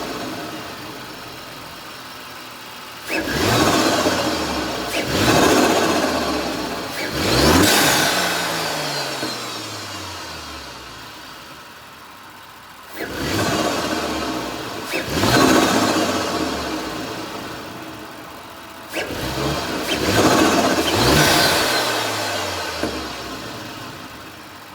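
B9 Audi S4's 3.0-litre turbocharged V6, fitted with a 034 Motorsport P34 cold air intake, being revved in a series of throttle blips. Each blip rises quickly and falls back to idle, in two groups with a quieter idle stretch around the middle.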